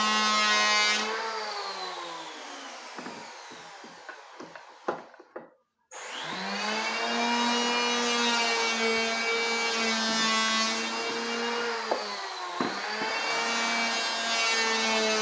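Bosch table saw's motor running at speed, then switched off and winding down with a few knocks. It is switched back on about six seconds in and runs up to a steady whine, dipping briefly in pitch about twelve seconds in before recovering.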